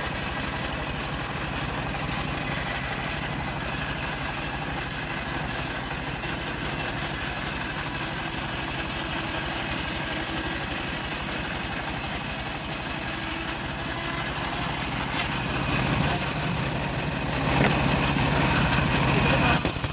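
A small engine running steadily, growing somewhat louder in the last few seconds.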